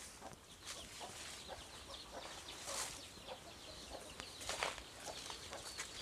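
Free-range country chickens (nattu koli) clucking, with chicks peeping in many short high calls. A few crunches, like footsteps on dry leaf litter, stand out about halfway through.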